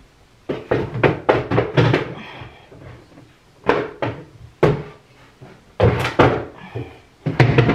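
A rapid, irregular run of knocks, bumps and rustles close to the microphone, coming in several clusters, like things being handled and wooden doors or drawers being knocked.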